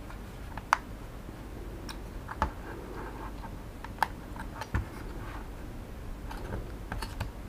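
Scattered small plastic clicks and taps as the opened plastic housing of a Xiaomi Mi Drone 4K remote controller is handled and a part of its shell is worked loose.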